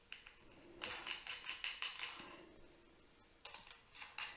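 Small metal flange nuts clinking and clicking as they are handled and threaded by hand onto the battery cells' terminal studs. The clicks come in two short clusters, the first about a second in and the second near the end.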